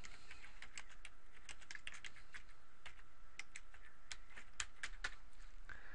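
Typing on a computer keyboard: a run of light, irregularly spaced key clicks as a word is typed.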